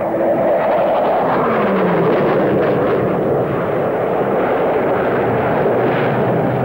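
Dassault Rafale A demonstrator's two F404 afterburning turbofans heard as the jet flies past overhead: a loud, steady jet noise with a tone that falls in pitch over the first two seconds.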